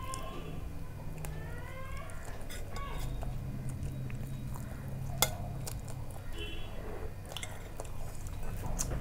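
Chewing of soft flatbread, with scattered small clicks and one sharp clink of a steel spoon against a steel bowl about five seconds in, over a low steady hum.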